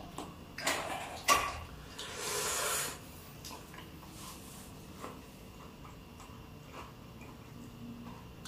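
Quiet eating sounds of cucumber slices dipped in spicy rujak sambal: a few small crunches and clicks, and a breathy sniff lasting about a second, about two seconds in.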